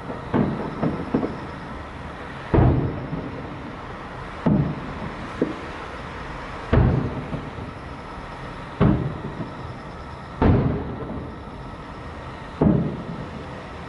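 Aerial firework shells bursting: six loud booms about every two seconds, each trailing off in an echo, with a few smaller pops about a second in.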